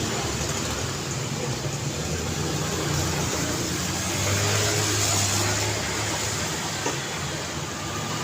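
Busy city street traffic: motor vehicles passing with steady engine and tyre noise, one passing a little louder about four to six seconds in.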